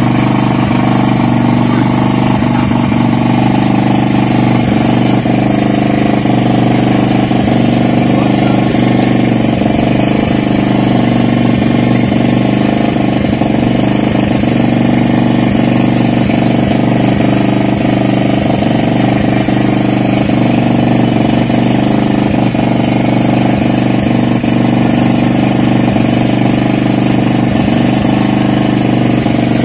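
An engine runs steadily throughout, a constant low drone that does not change in pitch.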